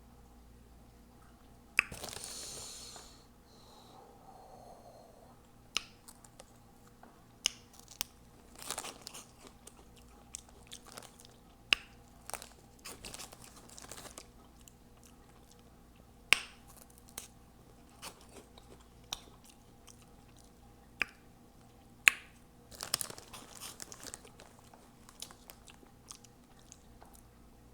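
Close-miked chewing and crunching of Hot Cheetos Puffs, with sharp mouth smacks every second or two.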